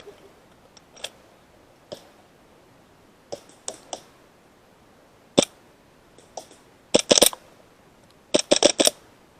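Airsoft pistols firing: scattered single sharp pops, some faint and some loud, then two quick strings of four or five shots about a second apart near the end.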